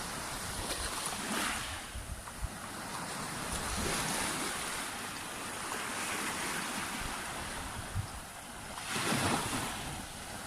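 Sea waves breaking and washing on a beach, the surf rising and falling in swells, strongest about nine seconds in, with wind buffeting the microphone.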